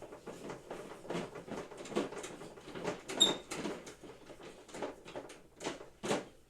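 Irregular knocks, taps and rattles of equipment parts being handled and fitted together during assembly, with one short ringing clink about three seconds in.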